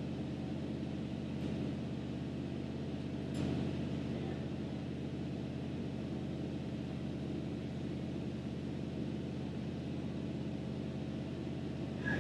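The 1976 Chevrolet C65 log truck's engine running steadily, with one short knock about three and a half seconds in.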